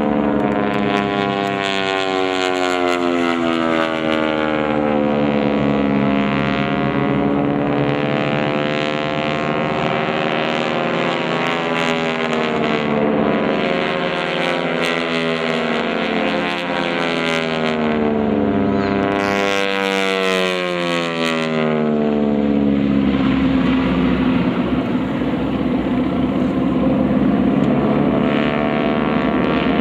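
Several North American T-6 Texans' Pratt & Whitney R-1340 nine-cylinder radial engines and propellers running overhead. Their pitch rises and falls as the aircraft move through their manoeuvres.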